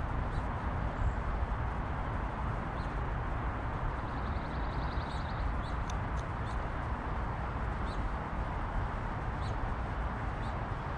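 Steady outdoor background noise, strongest in the low range, with faint short bird chirps scattered through and a brief rapid high trill a little before the middle.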